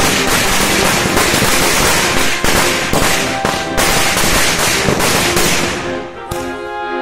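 Firecrackers going off on the ground in dense, rapid crackling pops with a hiss, dying away near the end. Music plays underneath and comes up clearly as the crackling fades.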